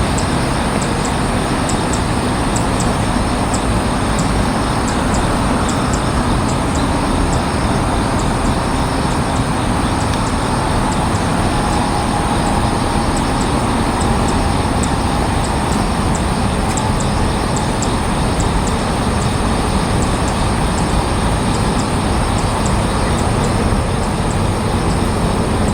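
Steady outdoor background roar like distant road traffic, with faint, evenly spaced high ticks in the first few seconds.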